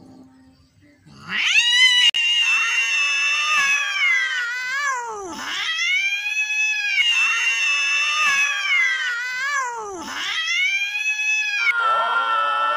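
Female cat in heat yowling during mating: about a second in she starts long, wailing cries, three of them of about four seconds each that drop in pitch at the end, then a lower cry near the end.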